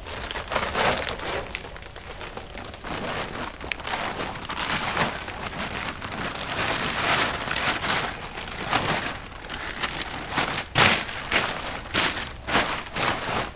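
Close, irregular rustling and crinkling of material being handled, with several sharp snaps in the last few seconds.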